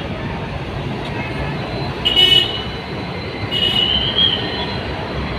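Road traffic as a city bus draws up to a stop, with two loud, high-pitched squeals: a short one about two seconds in and a longer one, rising slightly, near four seconds in, typical of the bus's brakes as it slows.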